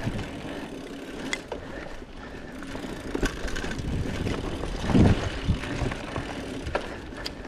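Bicycle riding along a forest trail: a steady rush of tyre and air noise, with scattered clicks and rattles from the bike and a heavier thump about five seconds in.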